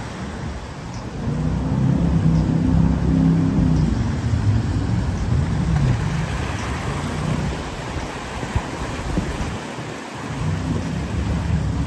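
Jet boat engine running hard on the river, its pitch rising and falling as the boat turns and speeds away, over the hiss of spray and rushing water. It dips briefly about ten seconds in, then builds again.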